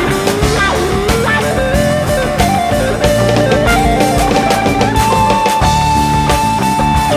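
Live rock band playing an instrumental passage: an electric guitar lead line bends and climbs, then holds one long note through the last couple of seconds, over a drum kit and the rest of the band.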